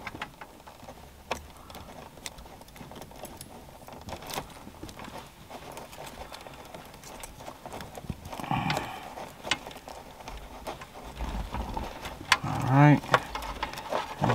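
Scattered light clicks and rustling as the loose wires of a car-stereo harness are handled and joined by hand.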